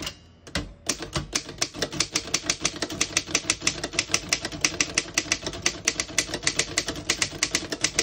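1928 Underwood No.5 manual typewriter being typed on: a steady run of rapid keystrokes, each typebar striking the platen with a sharp clack, starting about a second in after a brief pause.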